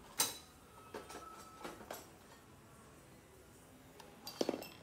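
Sharp clicks and knocks of hands handling a brass A/C manifold gauge set and its hoses: a loud click just after the start, a few lighter ones about one and two seconds in, and a short cluster of knocks near the end.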